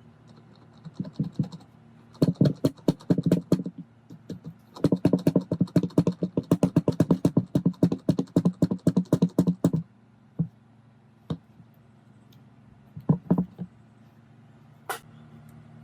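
Rapid runs of light, sharp clicks or taps, about six a second, in two stretches lasting a couple of seconds and about five seconds, then a few single clicks, typical of hand-tool work on small metal parts.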